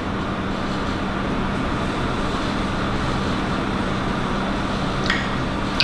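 Steady background hum with a hiss over it, and a couple of faint clicks near the end.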